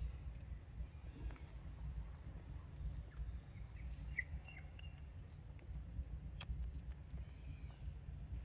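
Forest ambience: a short high chirp repeating about every two seconds, with a few faint bird-like chirps in the middle and a single sharp click a little past six seconds, over a low rumble.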